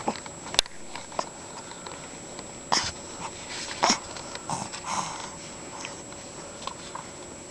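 A dog sneezing: short, sharp bursts, the loudest about three and four seconds in, with softer clicks and breaths between.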